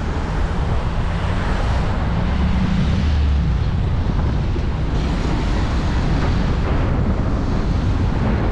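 Wind rushing over the microphone of a camera on a moving vehicle, with a steady low rumble of road noise underneath.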